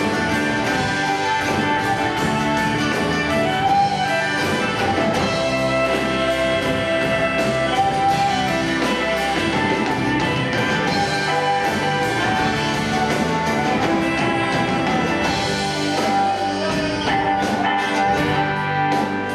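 Folk band playing an instrumental break live: fiddle carrying the melody over strummed acoustic guitar and electric bass, with a steady strummed beat.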